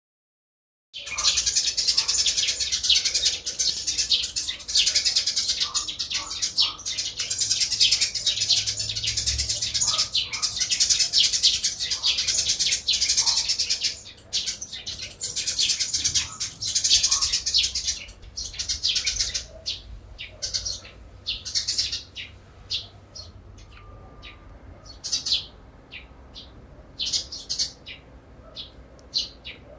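Many small birds chirping together in a dense, busy chorus of short high chirps, starting about a second in. About halfway through the chorus thins out to scattered single chirps and short phrases.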